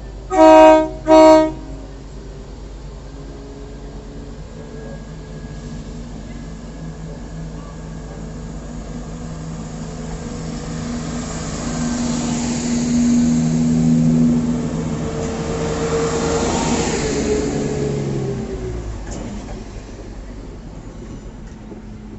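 A train horn gives two short blasts, then a diesel train runs by, its engine note building to its loudest partway through and fading away near the end.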